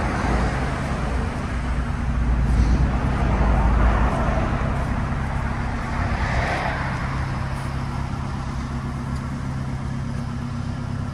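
Vauxhall Meriva's engine idling steadily, run to clear its misted windows. A rushing noise swells about two seconds in and again about six seconds in.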